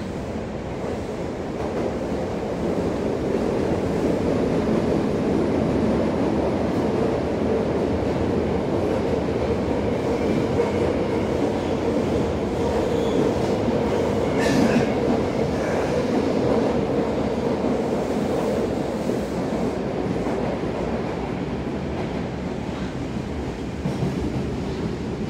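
Inside an Osaka Metro 30000 series subway car running through the tunnel: a steady rumble of wheels and traction motors that grows louder over the first few seconds, with a brief high-pitched squeal about halfway through.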